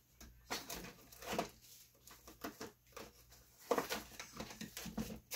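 Gloves being pulled onto the hands: a string of irregular short rustles and scuffs, loudest a little over halfway through.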